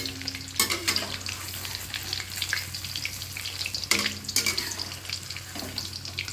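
Onion pakoras deep-frying in hot oil in a kadhai, sizzling steadily, while they are turned over with a utensil that knocks against the pan twice, about half a second in and near the middle.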